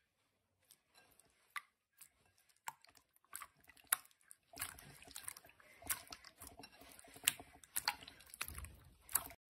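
Clear slime in a bowl pressed and squeezed by hand, giving faint sticky wet clicks and squelches, sparse at first and coming thicker and faster about halfway through.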